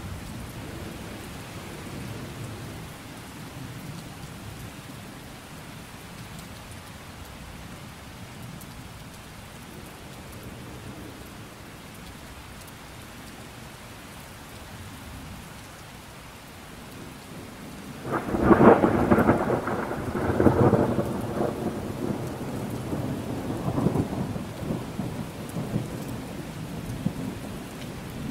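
Thunderstorm: steady rain with a low rumble, then about two-thirds of the way in a sudden loud thunderclap that crackles and rolls on for several seconds in further peals before easing back toward the rain.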